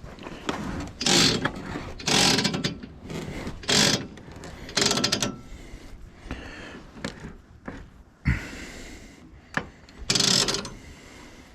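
A series of short, irregular scrapes and clatters, about five in all, of objects being moved and handled, with sharp clicks between them.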